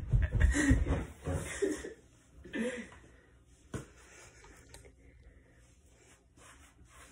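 A teenage boy laughing for about two seconds, with a short vocal sound a little later, then one sharp knock about four seconds in, and after that only quiet room noise.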